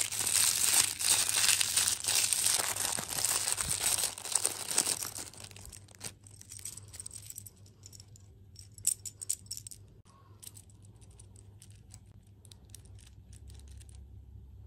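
A clear plastic wrapper crinkling for about five seconds as it is opened, then scattered light clicks of small plastic toy parts, wheels and frame pieces, being handled and snapped together into a toy motorcycle.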